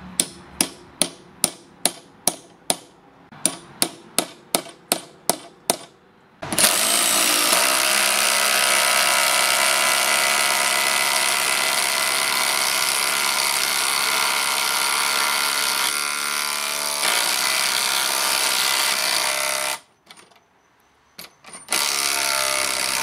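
A hammer tapping steel coach screws into timber: about fourteen sharp taps, two or three a second. Then cordless impact drivers (a HiKOKI WH36DC and a Makita 40V XGT) hammer continuously for about 13 seconds, driving 12 mm stainless coach screws into timber without pilot holes. After a short stop there is another short burst near the end.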